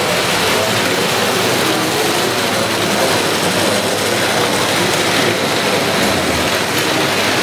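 Model electric trains running on the layout's metal track: a steady rolling rumble and clatter of wheels and motors as a goods train and a passenger train pass.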